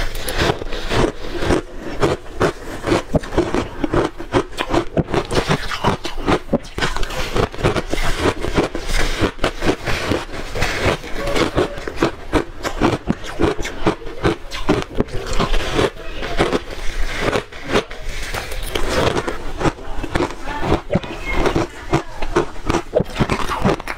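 Shaved ice being bitten and crunched between the teeth, close to the microphone. The crunches come thick and irregular, many a second, without a pause.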